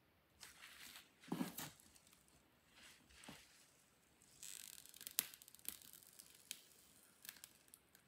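Faint rustling and crunching of a dry moss-covered styrofoam ball being pushed down onto a wooden stick, with a few small clicks. The longest rustle comes about halfway through.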